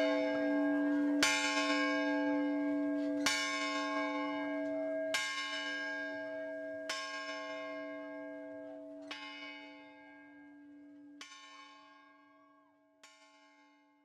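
A bell struck about every two seconds, seven times, each strike ringing on over the last, the whole growing steadily fainter toward the end.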